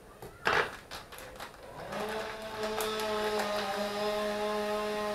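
A steady motor-like hum with several overtones is missing at first and starts again about two seconds in, rising a little in pitch as it comes back. It runs under kitchen handling noises: one short, loud rustle or clatter about half a second in, and light clicks.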